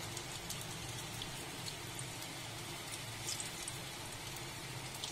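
Pieces of maida dough deep-frying in hot oil: a steady sizzle with scattered small crackles.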